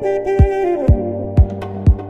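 Background music with a steady kick-drum beat about twice a second under sustained melodic notes.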